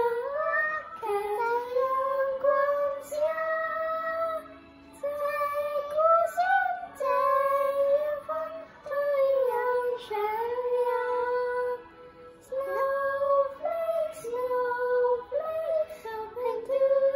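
Young boys' voices singing a slow melody with long held notes, pausing briefly between phrases.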